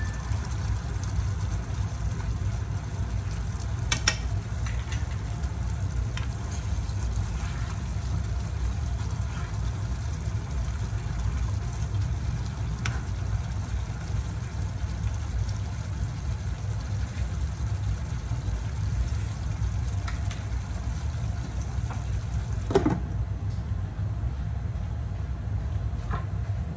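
A pot of water boiling on a lit gas stove makes a steady low rumble. A few light metallic clinks sound over it, a sharper one about 4 seconds in and the loudest about 23 seconds in.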